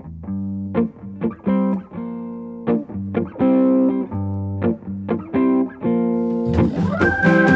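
Hollow-body electric guitar playing an unaccompanied intro of plucked chords and single notes. Near the end a Hammond organ slides up into a held chord and the cymbals come in.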